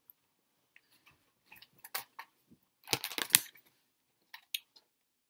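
Scattered light clicks and taps, with a quick cluster of sharper clicks about three seconds in.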